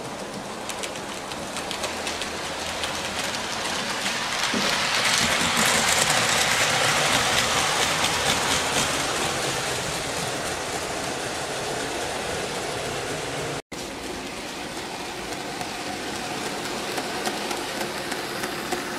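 00 gauge model trains running on the layout's track: a steady rolling whirr with fine clicking from wheels on the rails. It swells as the train runs close, about five to nine seconds in, and drops out for an instant about fourteen seconds in.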